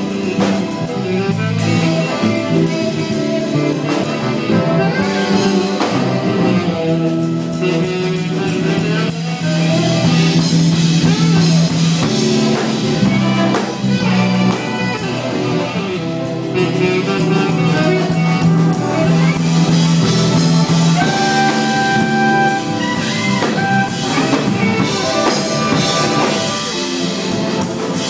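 Jazz band playing, with drum kit and horns.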